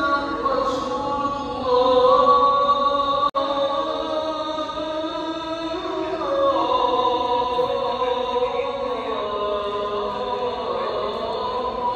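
A single voice chanting a slow, melodic recitation, holding long notes that glide slowly from one pitch to another. The sound drops out for an instant about three seconds in.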